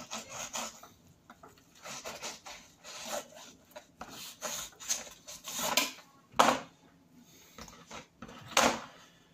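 A blunt kitchen knife scraping and cutting dogfish flesh against a cutting board, in irregular rasping strokes. Two louder knocks come about six and a half and eight and a half seconds in.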